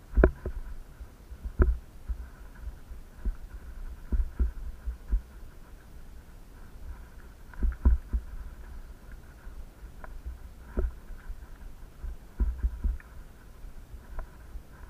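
Irregular low thumps and knocks as the camera jolts over a rough, stony dirt track, with a faint steady hiss underneath.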